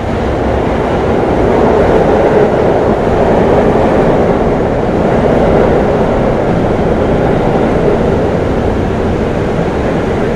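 New York City subway train running on the tracks at an underground platform: a loud, steady rumble that swells over the first couple of seconds and then holds.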